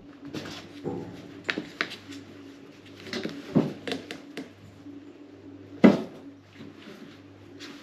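Scattered light knocks and scuffs on a wooden floor from a cat pouncing and batting at a hand. The sharpest knock comes about six seconds in as the cat lunges out.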